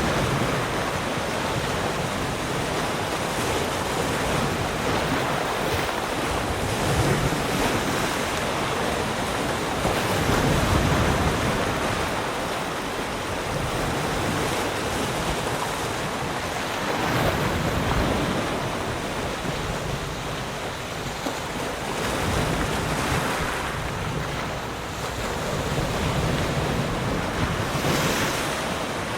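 Sea surf: waves breaking and washing in, swelling about every five to six seconds over a continuous rush of water, with some wind noise on the microphone.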